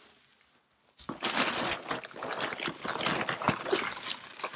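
Sawdust bedding poured out and scattered, a dense rustling crackle that starts about a second in.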